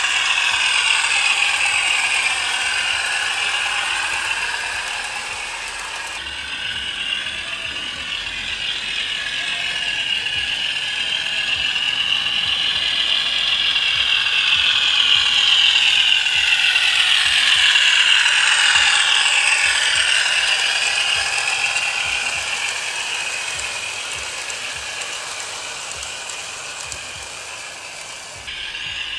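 Hornby OO gauge Class 50 model diesel running on garden track: the clatter of the model's motor and wheels, mixed with the English Electric engine sound from its Howes DCC sound chip through a small speaker, pitch rising and falling. The sound swells to its loudest a little past halfway and then fades.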